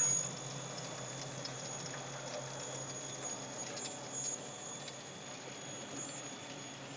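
Food extruder for puffed corn snacks running with a steady hum and a high whine, while the freshly puffed rings patter in a rapid scatter of small ticks as they are thrown out onto the pile below.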